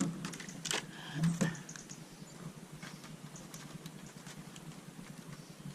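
Foam air filter being worked by hand in a tray of petrol: a few wet splashes and squelches in the first second and a half, then faint, irregular patter of dripping and small liquid sounds.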